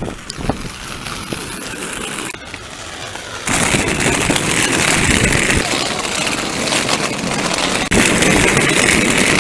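Rollerblade wheels rolling fast over a rough outdoor surface, a steady loud rumble that gets much louder about three and a half seconds in and breaks off briefly near the end.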